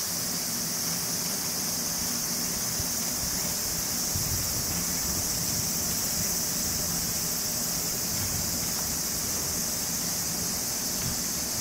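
A steady, high-pitched insect chorus that goes on without a break, with a faint low hum beneath it.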